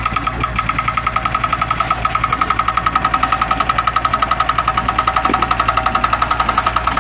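Zoomlion excavator running, with a rapid, even pulsing tone of about ten pulses a second over the low rumble of the engine.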